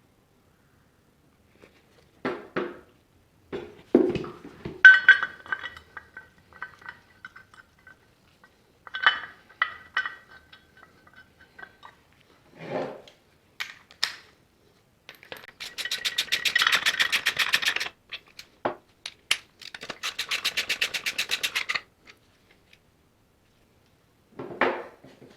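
Metal hand tools and engine parts clinking, knocking and scraping, some strikes ringing briefly. In the second half come two bursts of rapid clicking, each about two seconds long.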